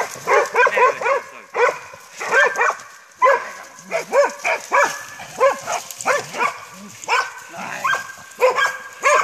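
Several hunting dogs barking hard and fast, about two or three barks a second, with the odd drawn-out yelp: dogs baying a wounded wild boar.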